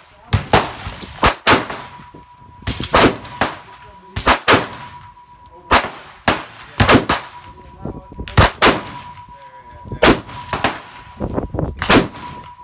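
Loud shots from a 7.5-inch AR-15 pistol chambered in 7.62x39 and fitted with a muzzle brake. It is fired mostly in quick pairs, about one pair every second and a half.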